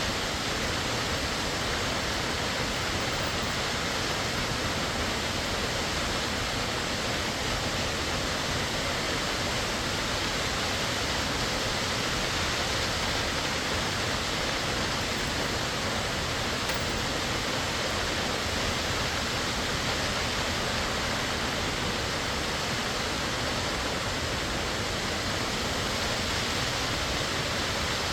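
Warm Springs Falls, a waterfall, rushing steadily: an even, unbroken roar of falling water.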